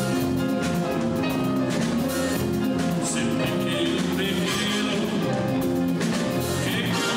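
Dance music with instruments and drums keeping a steady beat.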